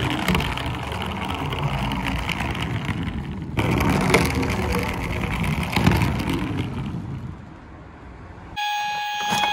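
Plastic wheels of a small toy fire engine rolling down a wooden board, a rough rumbling noise that fades out about seven and a half seconds in. About a second before the end, a steady electronic siren tone starts.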